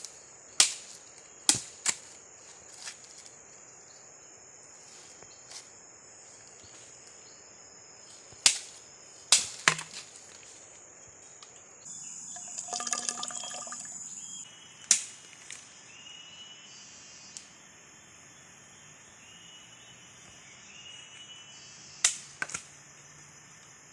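Sharp knocks or chops at irregular intervals, some in quick pairs or threes, over a steady high-pitched insect drone from the forest. A rougher, buzzing sound lasts a couple of seconds around the middle.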